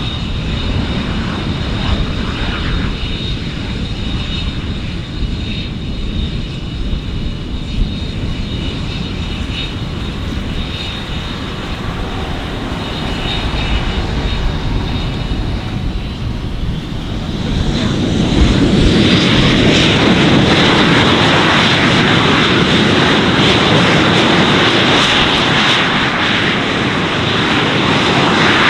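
Panavia Tornado's twin RB199 turbofan engines on take-off: a steady low rumble with a high whine, which about two-thirds of the way in swells into a much louder, fuller rumble as the jet powers down the runway and climbs away.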